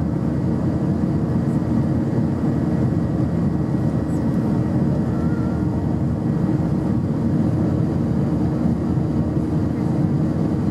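Airbus A319 jet engines and rushing airflow heard inside the cabin while the airliner climbs after takeoff: a steady, even low rumble with no change in pitch or level.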